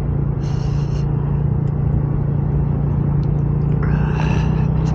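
A motor vehicle's engine running at a steady speed, with an even low drone. Two short patches of higher hiss come through, one under a second in and one about four seconds in.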